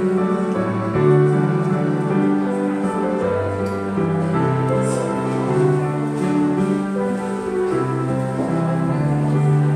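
Organ music: slow held chords over a sustained bass line, the notes changing about once a second.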